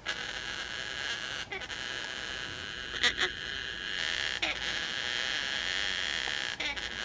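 Juvenile gang-gang cockatoos begging for food: a continuous raspy, wheezing begging call, with a few short, sharper calls about one and a half, three and four and a half seconds in.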